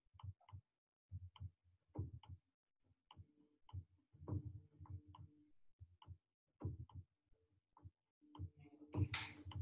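Faint, uneven ticking: short clicks with soft low knocks, roughly two a second, and a louder rustling noise near the end.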